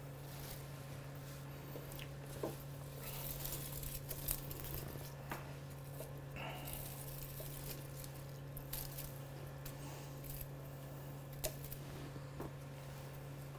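Faint rustling and crinkling of tomato leaves and stems being handled, with a few scattered small clicks and snaps, over a steady low hum.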